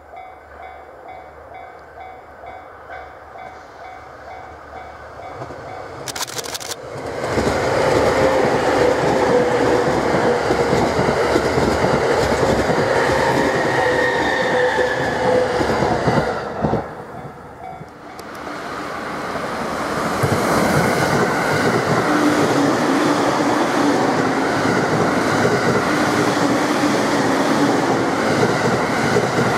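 Electric commuter trains passing at speed, first a JR East E231 series EMU. It is faint as it approaches, then gets suddenly loud about six seconds in and runs past with wheel-on-rail noise and a steady motor whine. After a brief drop about sixteen seconds in, a second commuter train grows louder and passes just as loudly with a lower steady whine.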